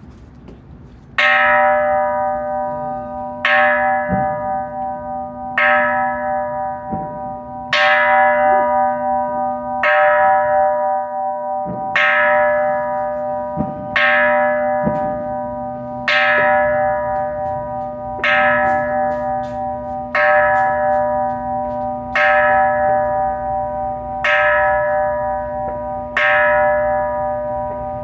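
Hanging Buddhist temple bell struck with a wooden mallet, thirteen strikes about two seconds apart, each ringing on and fading until the next. These are part of the traditional 108 bell strikes that welcome the New Year.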